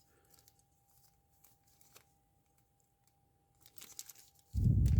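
Rummaging through small tools and packaging in search of a shim: a few faint clicks at first, then sharper clicks and a louder burst of rustling and handling noise near the end.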